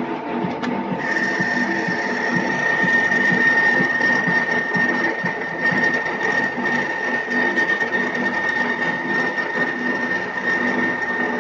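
Metal lathe running and cutting, its spinning chuck and drive giving a steady hum while a tool in the toolpost cuts into the end of a turned part. A steady high-pitched whine joins about a second in and holds.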